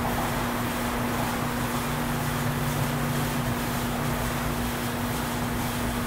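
Honeybees buzzing over an open, full hive: a steady, even hum with wind noise on the microphone.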